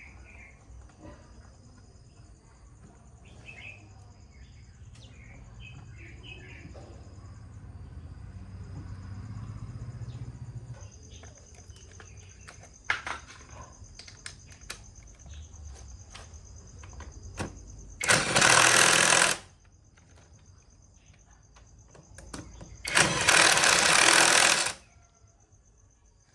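Two loud bursts of hissing noise, each about a second and a half long and about four seconds apart, after a stretch of faint knocks and a low hum.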